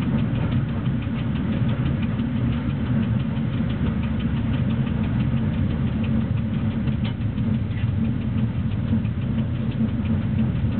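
Steady low running rumble of a BDZ class 46 electric locomotive under way with a freight train, heard inside the driver's cab, with a faint, fast ticking over it.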